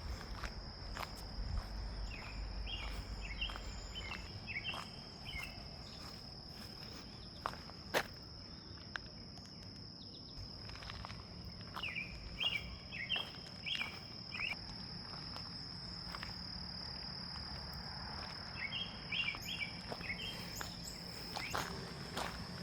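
A steady high-pitched insect drone, with a bird singing a short chirping phrase three times and scattered light clicks.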